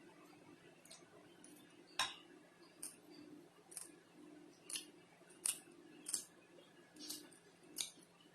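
A girl's hiccups, set off by eating spicy noodles: short, sharp catches in the throat, quiet and coming about once a second, the strongest about two seconds in.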